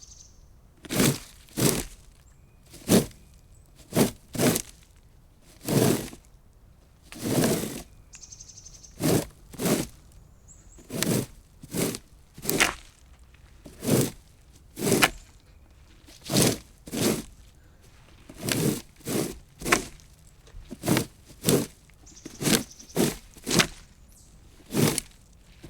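Plastic rake being used in short raking strokes, each one a brief scratchy scrape. The strokes come at about one a second, unevenly spaced and often in quick pairs.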